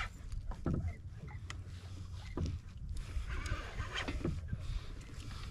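Water sloshing and lapping against a kayak hull, with wind rumbling on the microphone.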